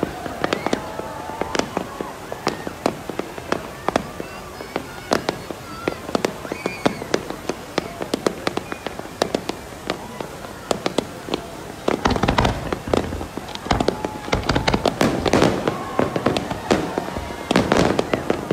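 Fireworks display: a steady run of sharp bangs and crackles from bursting aerial shells, thickening into a dense, continuous barrage about two-thirds of the way through.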